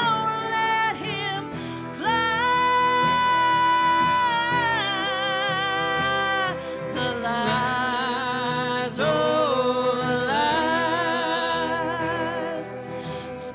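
Country heartbreak ballad played live by a small band of acoustic guitar, electric guitar and fiddle, with long held melody notes, some wavering, over a steady strummed accompaniment.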